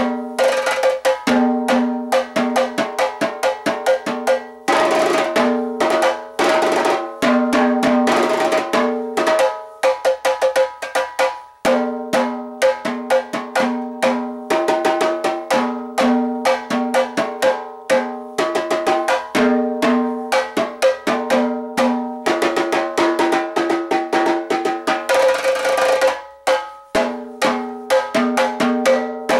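Improvised stick drumming on a set of three tuned drums, each ringing at its own pitch as the sticks move between them. Quick runs of single strokes alternate with very fast roll-like passages, with a couple of short breaks between phrases.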